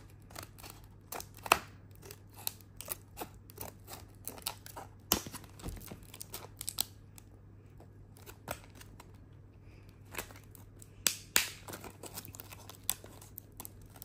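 Scissors snipping at a stiff plastic blister pack, with the plastic crackling and clicking as it is cut, bent and pried. The sharp snips and crackles come irregularly, a few louder ones standing out.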